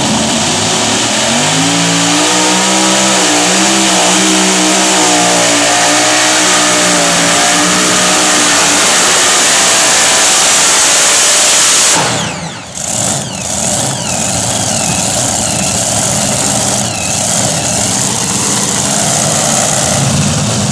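Multi-engine modified pulling tractor with supercharged engines running hard under load, its engine pitch climbing over the first couple of seconds. About twelve seconds in the sound dips suddenly with a falling whine, then the engines run on loudly.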